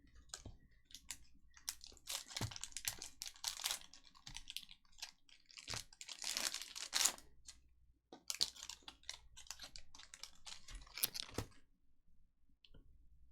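Trading cards being handled and flipped through by hand: quick clicks, slaps and scrapes of card stock, in three clusters with short pauses between.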